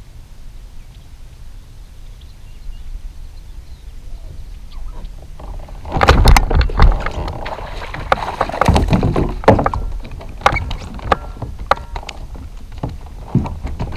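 Knocks and clatter from a plastic fishing kayak and the angler's gear as he shifts and works the rod, starting suddenly about six seconds in and loudest then, followed by scattered clicks.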